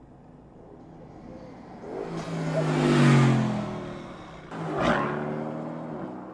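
Mercedes-AMG GT's twin-turbo V8 building as the car approaches and drives past, loudest about three seconds in, with its note dropping in pitch as it goes by. After a sudden cut, a second quick pass-by about five seconds in fades as the car pulls away.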